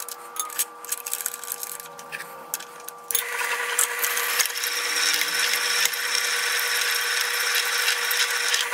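Drill press running with a steady motor hum. About three seconds in, the bit bites and a loud, steady metal-cutting noise takes over until it stops just before the end. The bit is drilling out a stuck bolt in a mower spindle housing, stepped up a size because the bolt has not spun out.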